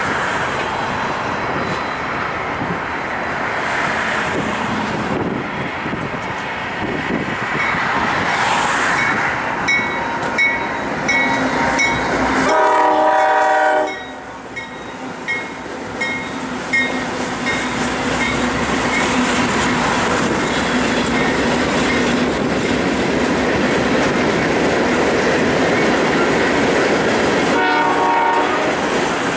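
Freight trains rolling past close by: a steady rumble of steel wheels on rail with clickety-clack over the joints. A locomotive horn sounds for a little over a second about halfway through, and again briefly near the end. Short high ringing tones repeat about twice a second around the middle.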